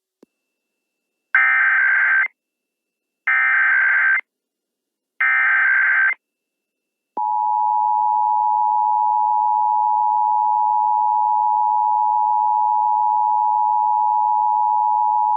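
Emergency Alert System tones for a Required Monthly Test: three bursts of SAME digital header data, each about a second long with a second's gap between, then about seven seconds in the steady two-tone EAS attention signal starts and holds to the end.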